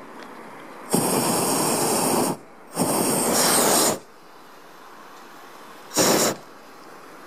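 Hot-air balloon's propane burner firing in three blasts: two long ones of about a second and a half each in quick succession, starting about a second in, and a short one near the end.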